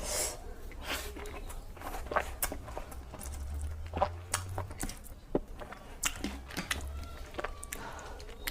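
Close-miked eating sounds of rice with cabbage-and-potato curry: irregular wet clicks, lip smacks and chewing.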